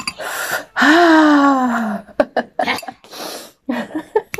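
A woman lets out one long, loud 'aaah' that rises and then falls in pitch, reacting to the burn of hot chili, followed by several short hissing breaths through the mouth.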